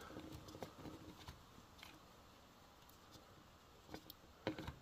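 Near silence, with a few faint clicks and light scrapes of fingers unscrewing the gearbox drain plug on a Yamaha Jog 90 scooter engine, and a slightly louder tick or two near the end.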